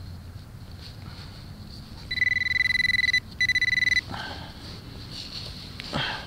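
Garrett Pro-Pointer pinpointer held in a dug hole, sounding its high, rapidly pulsing alert tone twice, about a second and then half a second long, as it picks up buried metal.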